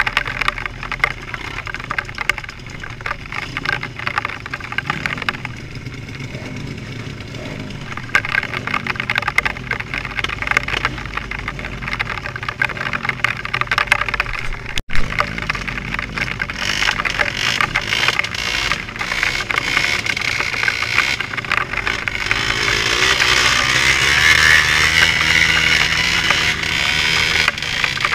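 A vehicle running on the road, with a steady low drone and many small clicks and rattles. It cuts out briefly about halfway through, then grows louder toward the end.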